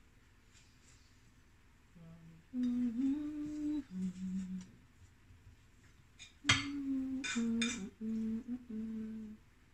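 A woman humming a tune without words, in two short phrases of held notes that begin about two seconds in, with a pause between them. One brief sharp sound comes at the start of the second phrase.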